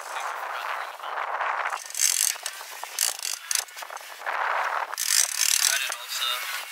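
Offshore trolling reel being cranked by hand, its gears and clicker ratcheting in uneven bursts, over a hiss of wind and rushing sea water.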